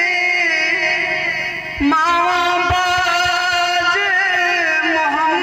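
A man singing a Punjabi naat into a microphone, holding long wavering notes; the voice drops away briefly a little under two seconds in, then takes up a new held note.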